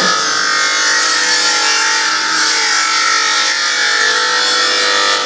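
SGA-2550AH surface grinder's abrasive wheel grinding a steel workpiece: a steady motor whine under a continuous hiss of grinding.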